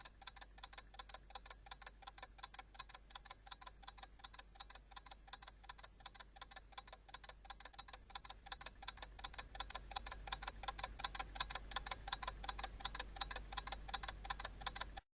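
Rapid, regular clock-like ticking, faint at first and growing louder from about halfway through, over a low steady hum.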